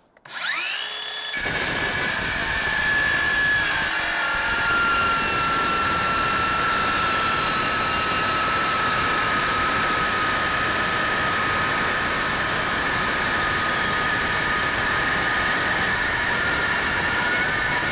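Makita cordless metal-cutting circular saw spinning up with a rising whine, then, a little over a second in, biting into quarter-inch steel plate. It cuts with a loud, steady metallic noise and a high tone that sinks slightly as the cut goes on. The blade is well used, with about a hundred cuts on it.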